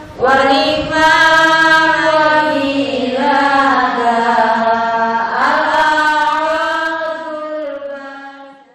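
Outro music: a solo voice chanting in three long, held, gliding notes, fading out near the end.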